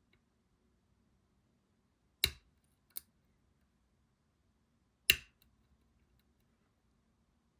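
Sharp metallic clicks from lock-picking tools working a lock: a loud one about two seconds in, a lighter one just after, and another loud one about five seconds in.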